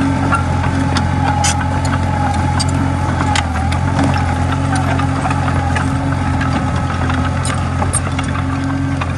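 Diesel engine of a Komatsu D20A bulldozer running steadily, with scattered sharp clicks and clanks.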